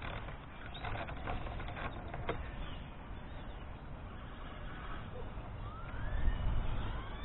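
Metal wrench working a nut on a carriage bolt through a wooden fence post: a short run of clicks about a second in and a single sharp click a little after two seconds. Near the end, two faint rising whistles over a low rumble.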